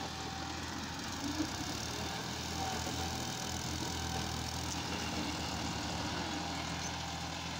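Massey Ferguson 260 tractor's diesel engine running steadily as it slowly moves a trolley loaded with soil.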